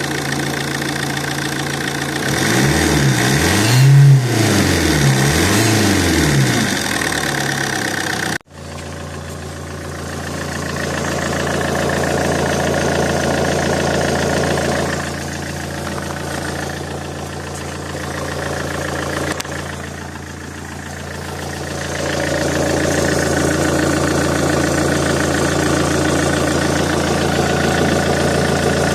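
Alfa Romeo GT 1.9 JTD four-cylinder turbodiesel engine idling, revved up and down a few times a few seconds in, with a steady high squeal near the common-rail pump. The squeal appeared after a turbo replacement and grows louder with mileage; an exhaust manifold leak has been checked and ruled out.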